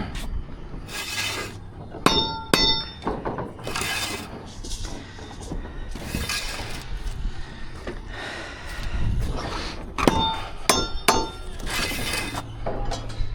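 Steel bricklaying trowel working mortar: repeated short scrapes as mortar is scooped and spread, and several sharp ringing metallic clinks as the trowel strikes.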